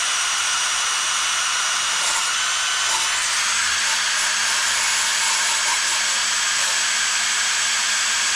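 DeWalt Atomic cordless drill spinning a yellow Roloc abrasive disc against a small-engine crankcase's gasket surface, grinding off old gasket material. It runs steadily with a high whine that steps up slightly in pitch two to three seconds in.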